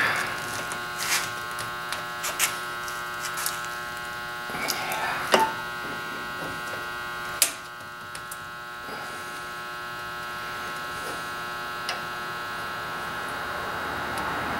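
Steady electrical hum, with a few sharp metal clicks as an adjustable wrench turns a brass fitting on a Coleman stove's fuel tank clamped in a vise; the loudest clicks come about five and seven seconds in.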